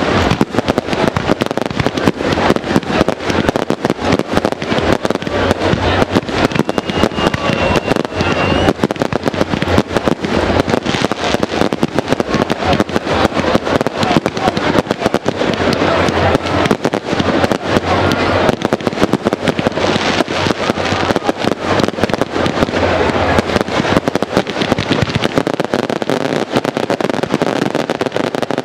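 Fireworks display: aerial shells bursting one after another in a dense, continuous run of bangs and crackling.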